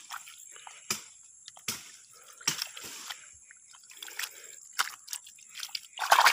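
Hands scooping and slapping wet mud into a gap in a rice-paddy dike, with short wet splats and squelches and trickling water. A louder splash comes near the end.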